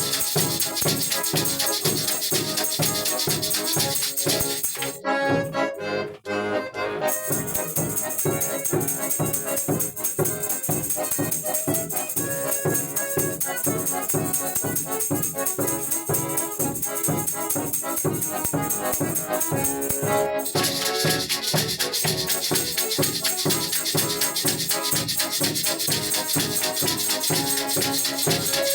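Music with a fast, steady rattling percussion beat. It thins out briefly about five seconds in, then the hissy top of the sound drops away until about twenty seconds in, when it comes back.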